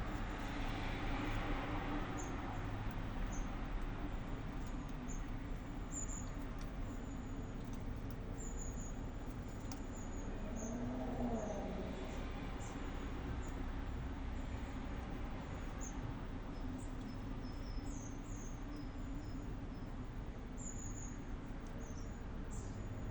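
Steady low rumble of city traffic, with frequent short, high chirps of small birds scattered throughout.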